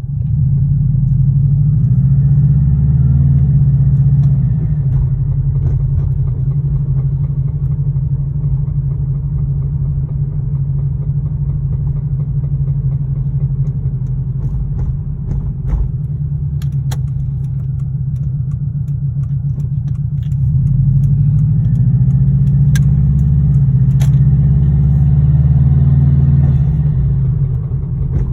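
2002 Subaru WRX's turbocharged flat-four engine running, revved up and let back down twice, once near the start and again near the end. The owner takes the sound to be rod knock.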